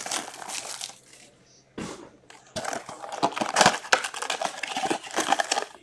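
Plastic shrink wrap crinkling as it is stripped off an Upper Deck hockey card blaster box, then the box's cardboard flaps rustling as they are torn open. The crinkling comes in a burst at the start, pauses, and picks up again with denser rustling and crackling about two and a half seconds in.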